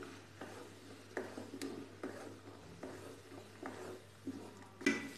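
Flat spatula scraping and stirring a thick ground masala paste in a metal kadhai, in repeated short strokes about two a second, with a louder knock against the pan near the end. The paste is being fried in oil (bhuna) until the oil separates.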